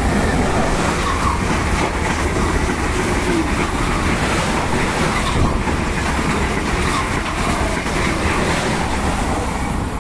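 Renfe passenger train running through the station at speed right beside the platform: a loud, steady rush of wheels on rails and displaced air that builds over the first second and then holds.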